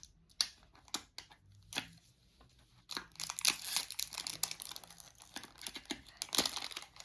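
Packaging wrapper of a squishy toy being handled and torn open: a few scattered crackles, then, from about three seconds in, dense continuous crinkling and tearing.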